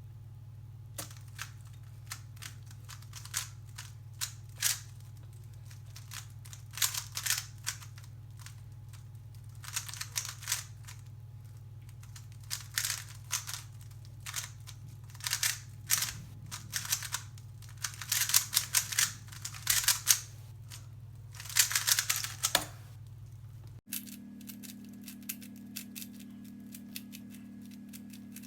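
Rubik's cube being turned by hand: plastic layers clicking and clattering in quick bursts of rapid turns, over a steady low hum. Near the end the sound cuts to only a few faint clicks.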